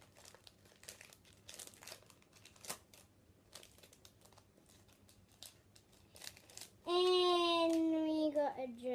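Foil trading-card pack wrapper crinkling in a steady run of small crackles as it is torn open by hand. Near the end a child's voice gives one long drawn-out sound.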